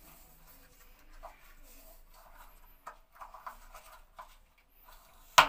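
Thread-seal tape being stretched and wound around the threaded metal inlet nipple of an electric water heater: faint rubbing and crinkling, sealing the threads against leaks. A single sharp knock near the end.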